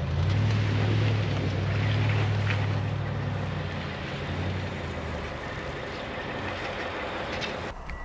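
Vehicle engine running with a steady low hum over a steady rushing noise, as a tow truck pulls a car through deep snow on a tow strap; the hum fades after about four seconds.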